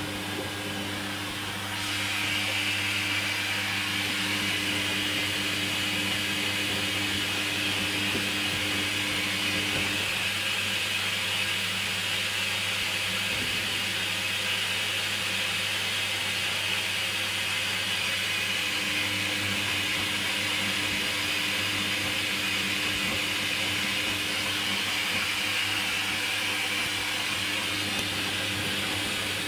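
Hoover Dynamic washing machine in its final rinse, most likely filling with water: a steady hiss of inflowing water starts about two seconds in, over a low mechanical hum.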